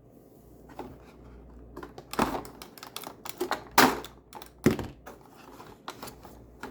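Small packaging being handled and opened: a handful of sharp, separate clicks and taps of cardboard and small plastic pieces, the loudest about two, four and nearly five seconds in.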